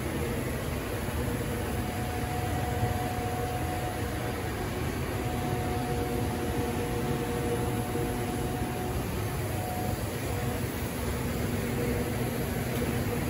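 Steady mechanical hum and hiss of running machinery, with faint steady tones fading in and out.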